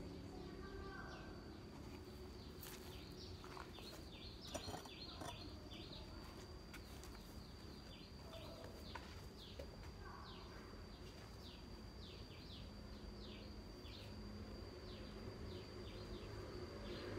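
Birds calling in a rapid run of short falling chirps over a steady, high-pitched insect drone, with a brief click about four and a half seconds in.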